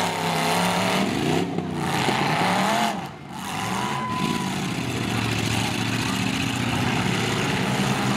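Demolition derby trucks' engines revving hard, the pitch climbing and falling again and again, with a brief drop in loudness about three seconds in.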